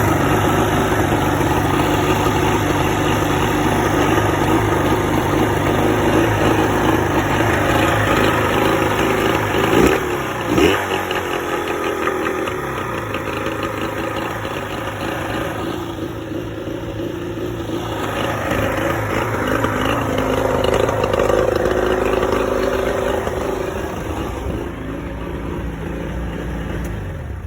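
1986 Evinrude 50 hp two-stroke outboard running at idle, unevenly, with two brief surges about ten seconds in; the shaky idle is the sign of a misfire at idle.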